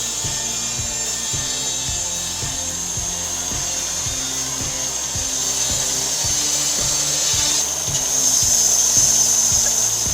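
Power saw cutting wood, a steady high-pitched whine that grows louder about eight seconds in, over background music with a steady beat.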